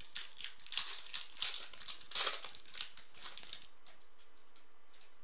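A football card pack's wrapper being torn open and crinkled by hand, in a run of irregular crackling bursts that stop about three and a half seconds in.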